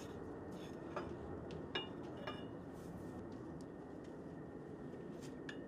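A few light metallic clinks, two of them ringing briefly, as a metal sleeve is handled on a KC-135R's greased wheel axle, over a steady background hum.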